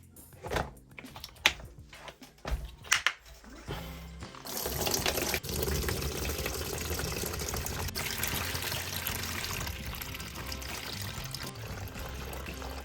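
A few sharp clicks and knocks of objects being handled, then liquid being poured in a steady stream from about four and a half seconds in, over background music.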